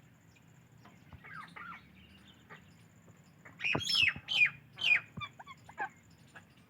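Psittacula parakeets chirping. Soft, scattered chirps come first, then a burst of loud, sharp calls about halfway through, followed by a few shorter chirps.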